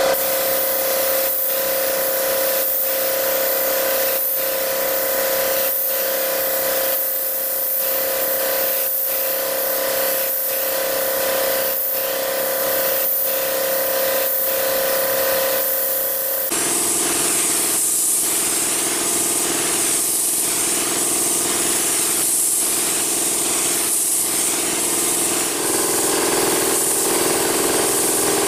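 Gravity-feed air spray gun hissing steadily as it sprays a liquid wood finish, over the steady hum of the air compressor that feeds it; the sound changes abruptly about halfway through.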